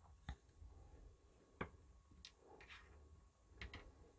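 Near silence with a few faint, scattered clicks of small metal parts being handled: the steel encoder disc being worked off the anemometer's shaft.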